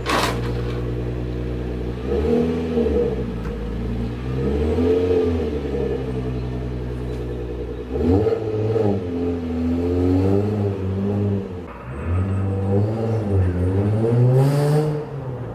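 Nissan 350Z's V6 engine revving up and down repeatedly, its pitch rising and falling every second or two.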